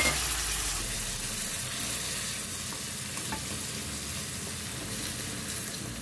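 Chopped onions and tomatoes sizzling in hot oil in a wok while a wooden spatula stirs and scrapes through them; the sizzle is a steady hiss that eases slightly.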